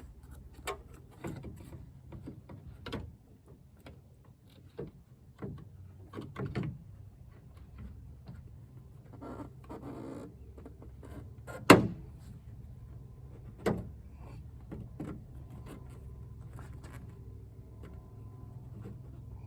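Hard plastic clicks and knocks as a Toyota Tacoma tail light assembly is handled and pushed into its mounting holes on the truck's body, with one sharp, loud knock about twelve seconds in and another a couple of seconds later.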